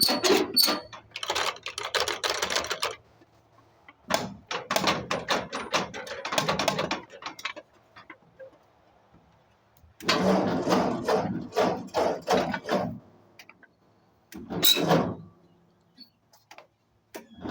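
Bursts of rapid clicking and rattling, each lasting a second to three seconds, with short pauses between.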